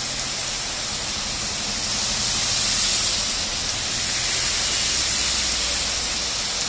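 Heavy rain pouring steadily onto a paved street: a dense, even hiss with no breaks, over a faint low hum of traffic.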